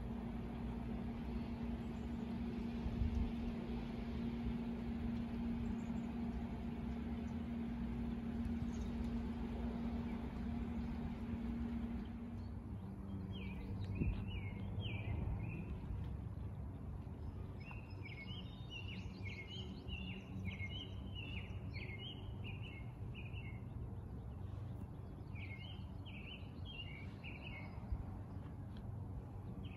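A steady hiss with a low hum for the first twelve seconds or so, then songbird song: several bursts of quick, high chirps with short pauses between them.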